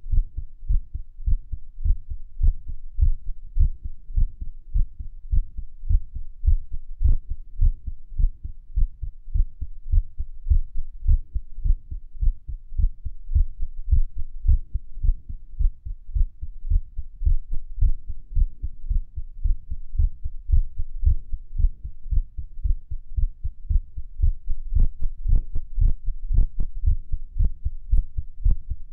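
Human heartbeat recorded against the chest at Erb's point, a continuous run of low, muffled lub-dub thumps. A few sharper clicks stand out near the end.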